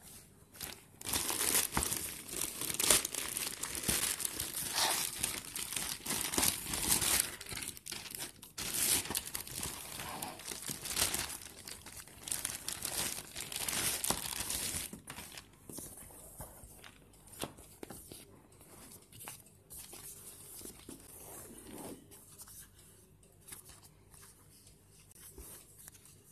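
A plastic mailer bag and its clear plastic wrapping are torn open and crinkled by hand, with loud rustling and tearing. About fifteen seconds in, this gives way to fainter scattered rustles and handling sounds.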